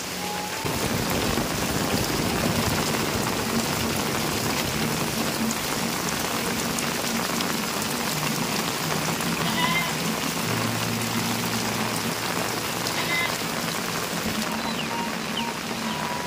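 Steady rain falling on tiled roofs and a wet village path, an even hiss with no let-up.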